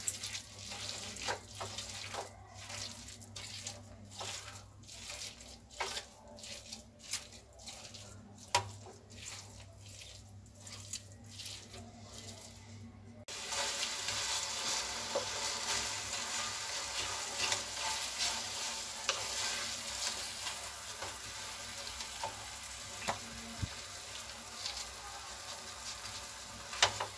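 Fresh chhena being mashed by hand on a steel plate, soft pressing strokes at about two a second. About 13 seconds in this cuts to a steady sizzling hiss, with light scrapes of a wooden spatula, as the chhena is stirred and roasted in a pan on the stove.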